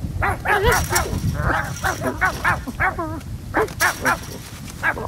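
A cartoon cat's voiced cries, done by a human voice: a quick run of short squeaky calls that bend up and down in pitch, with effortful grunts as the cat squeezes under a wire fence.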